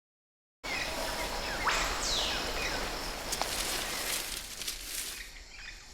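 Film sound-effect ambience of outdoor natural noise with short bird-like chirps and a few sharp clicks, starting after a brief silence. About a second and a half in, a bright high sweep rises quickly and then falls away.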